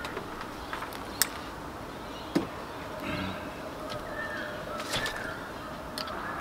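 A handful of short, sharp plastic clicks and taps as a clear vinyl hose is worked onto a PVC elbow fitting and clamped. The loudest come about a second in and again about two and a half seconds in.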